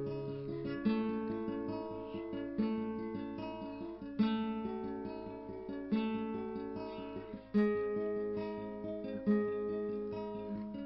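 Background music: an acoustic guitar picking notes, with a new chord struck about every one and a half to two seconds.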